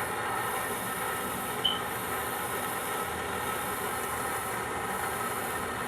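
Soldering torch flame hissing steadily while it heats a copper valve fitting for sweat soldering. A short high tone sounds once, nearly two seconds in.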